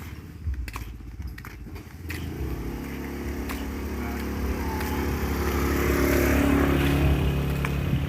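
A motor vehicle's engine drawing near, growing steadily louder from about two seconds in and loudest toward the end. Light clicks and rustles come before it.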